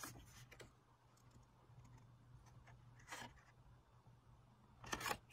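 Near silence over a faint steady low hum, broken by a few soft rustles of cardstock as a glued paper panel is laid down and pressed into place: one at the start, one about three seconds in, and a slightly louder pair near the end.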